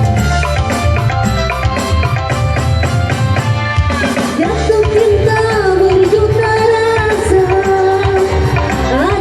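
A song with singing over a drum and bass beat. From about four and a half seconds in, the voice holds a long, wavering note.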